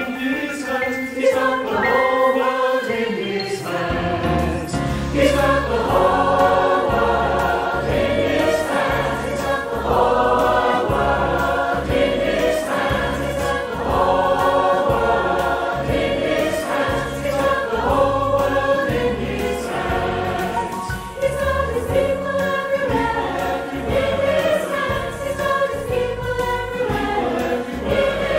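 Mixed choir of men's and women's voices singing with instrumental accompaniment, mixed together from separately recorded home takes; a strong bass part comes in about four seconds in.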